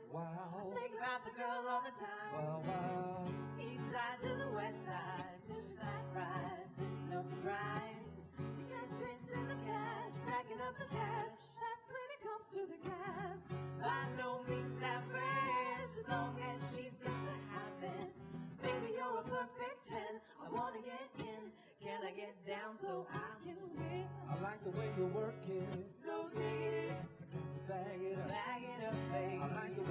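Live acoustic performance: a strummed acoustic guitar accompanying women singing.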